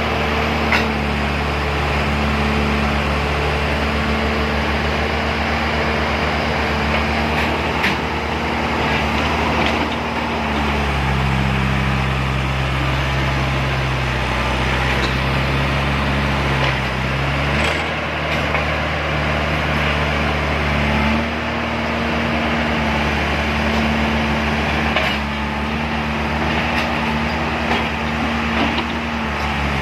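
Heavy diesel engine running steadily under load, as when a backhoe loader works with a tractor up a slippery hill; its note drops about ten seconds in and rises again about twenty-one seconds in as the revs change.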